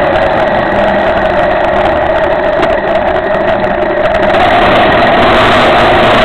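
Cagiva Elefant 600 motorcycle engine running on the move, with heavy wind rush on the microphone. The engine note falls a little at first and eases off briefly around the middle as the bike slows into a turn, then holds steady.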